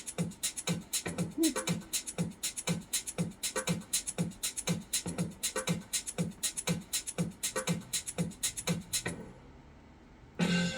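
Music: a fast, steady percussion beat of low thumps and crisp clicks, about four a second. The beat stops about nine seconds in, and near the end a new piece of music with held notes begins.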